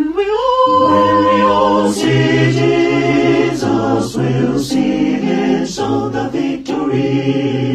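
One man's voice multitracked into four-part a cappella harmony, singing the final wordless phrase of a gospel hymn: a high part slides up into a long held note over sustained chords, then the chords move on to a close.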